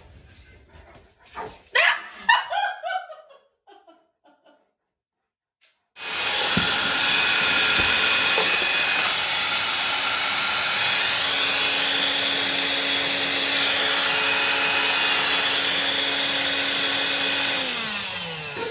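Vacuum cleaner running steadily for about eleven seconds, then switched off, its motor's pitch falling as it spins down. Before it starts there are a few short, faint sounds and then several seconds of silence.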